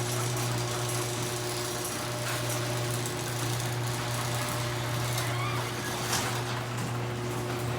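AccessMaster M885 chain-drive garage door opener running steadily, its motor hum and chain lifting a large sectional door.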